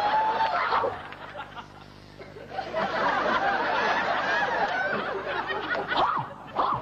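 Sitcom studio audience laughing, swelling after a short lull and going on for several seconds. A woman's long, held scream cuts off about half a second in.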